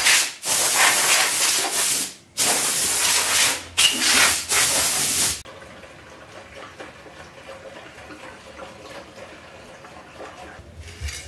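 Compressed-air blow gun blasting in three loud bursts of hiss, each one to two seconds long with short breaks between, stopping about five seconds in.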